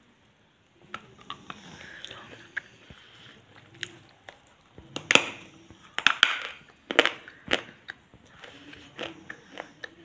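Biting into and chewing a chocolate bar: a series of sharp crunches, loudest between about five and seven and a half seconds in, with quieter chewing between.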